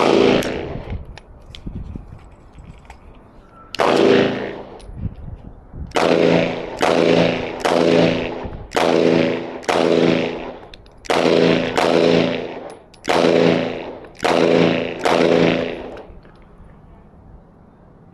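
Gunshots fired at a target: a single shot, another a few seconds later, then a string of about ten shots at roughly one a second. Each shot rings out in a short echo.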